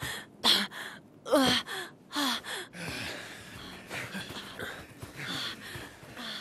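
A boy panting hard, gasping for breath after running. Three loud gasps come in the first two and a half seconds, then softer, quicker breaths follow.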